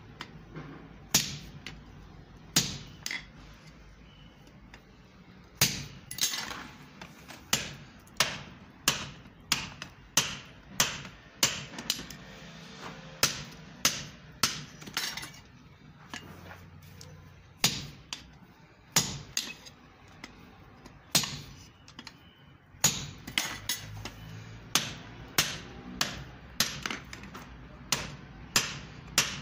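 Hand hammer forging a red-hot steel axe head held in tongs on an anvil: sharp metallic strikes about one to two a second, in runs broken by a few short pauses, each ringing briefly.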